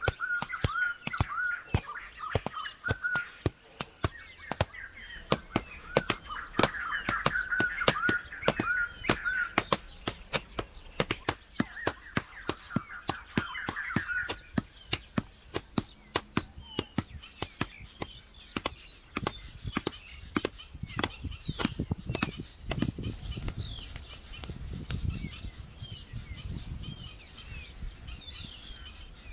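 A hoe chopping into hard, dry earth: a steady run of sharp thuds, about one to two a second, with birds chirping throughout. A low rumble joins in for the last several seconds.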